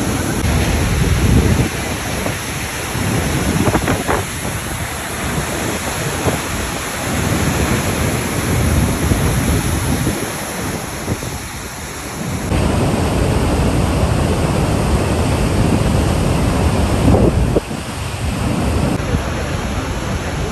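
Steady rushing of Niagara Falls, the falling water and its spray heard close up, with wind buffeting the microphone in low rumbles. The sound changes abruptly a few times as the clips cut, once a little past halfway and twice near the end.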